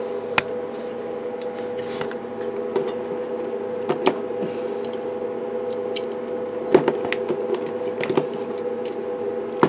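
A steady multi-pitched hum, with a few sharp clicks and knocks as hands work on wiring and parts inside an open CB radio chassis.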